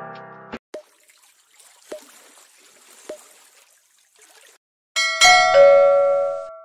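Background music stops about half a second in. Then come a few faint water-drop plinks, about one, two and three seconds in, and about five seconds in a loud bell-like chime sounds, its tones ringing on and fading out.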